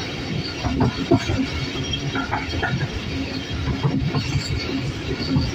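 A train running along the track, heard from on board through an open door: a steady rolling rumble with scattered clicks and knocks of the wheels on the rails.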